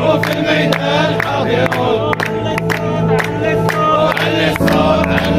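A protest crowd chanting in unison over steady rhythmic hand-clapping, about three or four claps a second.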